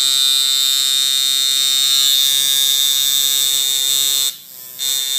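Coil tattoo machine running with a steady buzz, its armature bar striking the front coil through a single layer of 3M tape that damps the noise. It cuts out briefly a little over four seconds in, then starts again.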